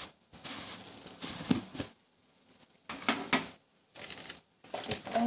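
Cooking noise from a wok of broth heating toward the boil: a hiss with light crackle and a few sharp clinks of utensils, dropping out in two short near-silent gaps.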